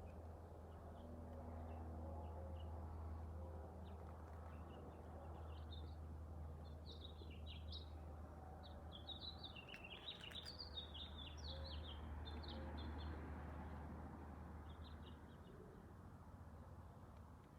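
Small birds chirping in short, high notes, sparse at first and then a busy cluster of rapid chirps in the middle, over a steady low background rumble.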